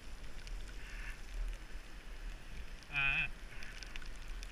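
Steady low rumble of wind buffeting the microphone of a camera on a moving bicycle on a wet road. About three seconds in, a person gives one short wavering vocal sound.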